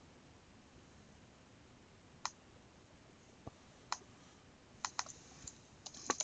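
Computer mouse and keyboard clicks over a faint steady hiss: a few separate clicks, then a quicker run of key presses near the end as typing begins.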